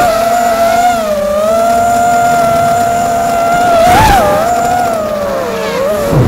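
FPV quadcopter's electric motors and propellers whining, heard from the camera on board the drone. The pitch dips and rises as the throttle changes, with a brief louder surge about four seconds in and a lower pitch near the end.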